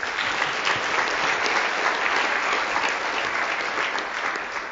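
Audience applauding after a talk: many hands clapping together, steady and loud, beginning to fade near the end.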